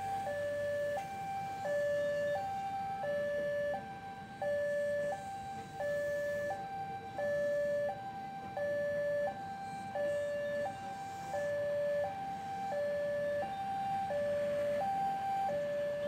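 Railway level-crossing warning alarm sounding a steady two-tone hi-lo signal, switching pitch about every 0.7 s, while a train rolls past underneath with a low rumble.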